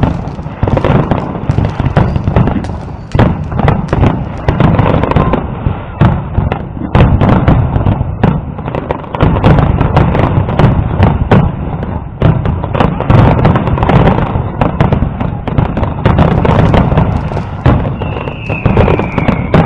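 Aerial fireworks display: a rapid, unbroken barrage of shell bursts and bangs over a low rumble, with a falling whistle near the end.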